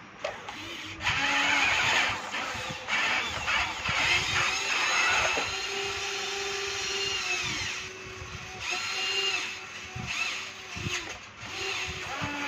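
Bulldozer working, its engine running steadily under a high whine that rises and falls in pitch, with bursts of grinding and clanking.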